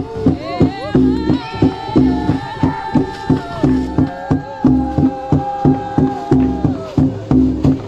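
Traditional Dayak Hudoq dance music: a steady percussion beat of about two strokes a second, with a long held melodic line over it that slides into its notes at the start and breaks off near the end.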